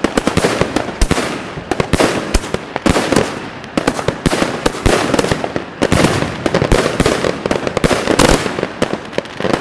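Multi-shot fireworks cake firing a rapid, irregular series of shots, each launch pop followed by bursting and crackling reports that overlap.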